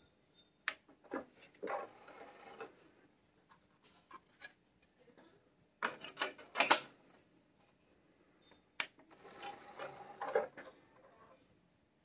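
Teac AD-RW900 CD recorder's disc tray: a button click, then the tray motor whirring as it slides out; a disc clattering and rubbing as it is set in the tray; then another button click and the tray whirring shut.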